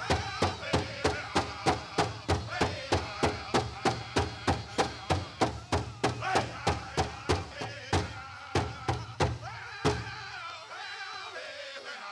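Pow wow drum group playing a chicken dance song: a big drum struck in a fast, steady beat under high-pitched group singing. Near the end the beats turn uneven and the drum stops about ten seconds in, leaving the voices alone.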